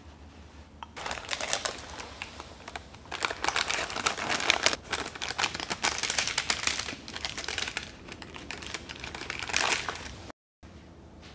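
Parchment baking paper crinkling and rustling as it is peeled down off the sides of a baked pound cake, in a run of crackles lasting several seconds, loudest around the middle and with a last flurry near the end.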